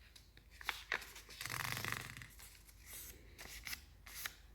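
A sheet of paper being folded by hand: faint rustling and crinkling, a couple of light clicks under a second in, and a longer rustle about a second and a half in.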